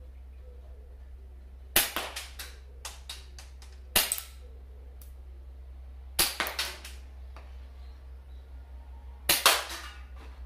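Marushin gas-blowback replica of the Nambu Type 14 pistol firing BBs: about five sharp cracks roughly two seconds apart, the last two in quick succession, each followed by a few lighter clicks.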